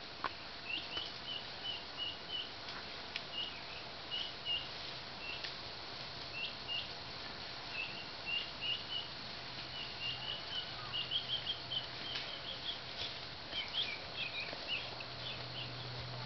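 Small birds chirping, short high chirps in quick runs of two to five, with an occasional sharp click.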